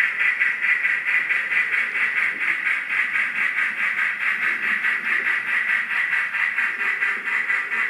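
Sound-equipped model of the Union Pacific 4014 Big Boy steam locomotive playing its exhaust chuff through a small speaker: a steady, rapid pulsing hiss, several chuffs a second.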